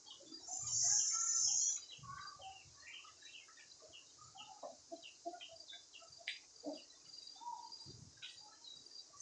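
A flock of free-range chickens making many short clucks and chirps, scattered and overlapping, over a steady high insect drone. A louder high buzz swells for about a second near the start.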